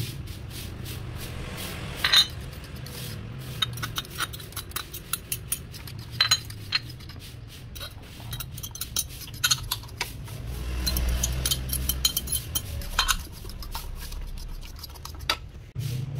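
Metal fork clinking and scraping against a ceramic bowl as beaten eggs are stirred, with small ceramic dishes tapping the rim as ingredients are tipped in; irregular sharp clinks over a low background hum.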